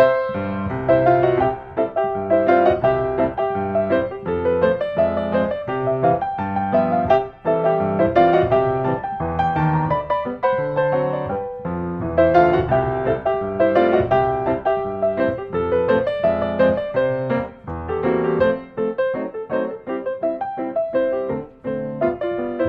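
Background piano music, many notes played in a flowing melody over lower chords.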